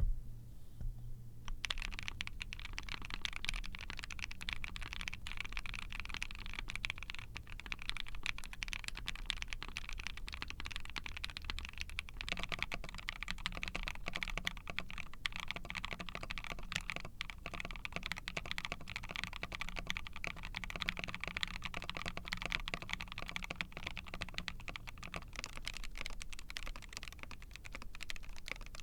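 Continuous fast typing on a mechanical keyboard fitted with Zepsody Wisteria factory-lubed linear switches (long-pole stem, 62 g springs), giving a deep bottom-out with a slightly clackier return. The typing starts about a second and a half in, and the tone of the board shifts twice, around twelve seconds in and again near the end.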